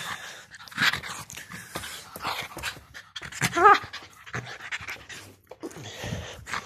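Pomeranian panting and snuffling hard right at the microphone during rough play, with scuffling rustles and one brief pitched cry about three and a half seconds in.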